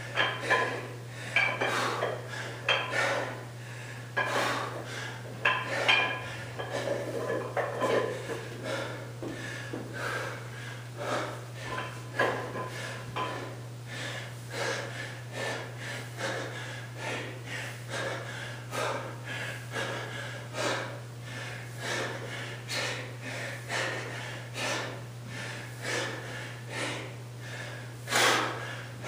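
A man breathing hard in a steady rhythm, about one loud breath a second, through a set of dumbbell goblet squats, with light metallic clinks from the plate-loaded dumbbell. A low, steady hum runs underneath.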